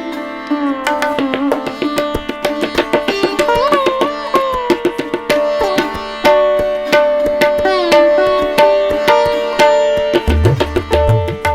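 Background music: rapid hand-drum strokes under a plucked melody whose notes slide up and down. A low bass line comes in near the end.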